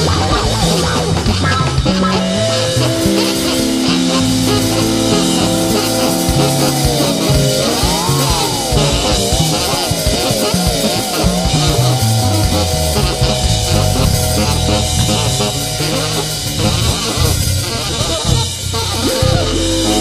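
Live band playing an instrumental passage: steady drums and a bass line under a held lead note that slides up and wavers in pitch about halfway through, then settles back onto a steady tone.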